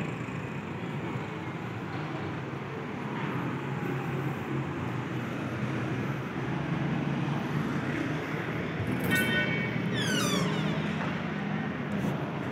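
Steady road traffic noise from the street, with a short horn toot about nine seconds in and a quick falling tone just after it.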